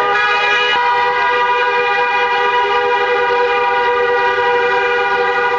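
Car horns held down in one long, continuous blast, two or more horn tones sounding together, with another tone joining just under a second in. Celebratory honking from cars driving by.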